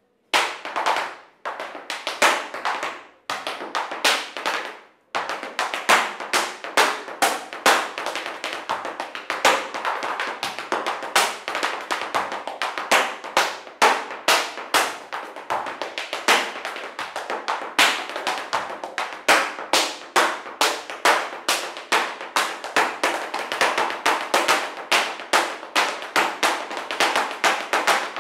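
Flamenco zapateado: flamenco shoes striking the floor in footwork. A few separate stamps with pauses come first, then, about five seconds in, a fast unbroken run of heel and toe strikes.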